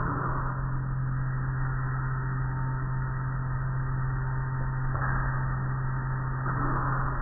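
Automatic car wash machinery running: a steady low motor hum under the hiss of water and foam spraying onto the vehicle as the cloth wash curtains work over it. The spray hiss swells about five seconds in and again near the end.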